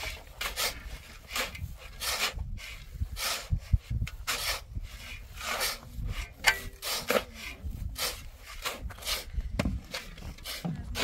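Two steel shovels scraping and scooping through a heap of dry sand and cement as it is mixed by hand. The rasping scrapes come one after another, about one to two a second.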